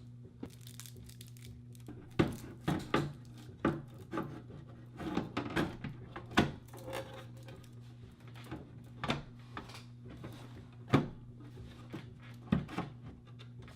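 Handling of a computer power supply and its packaging: irregular clicks, knocks and crinkling rustles, loudest about two, six and a half and eleven seconds in, over a steady low hum.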